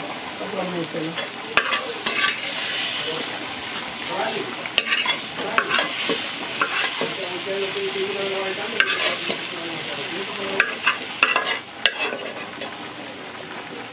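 Seasoning sautéing in hot oil in a caldero, sizzling steadily, while a spoon stirs it and scrapes against the pot now and then.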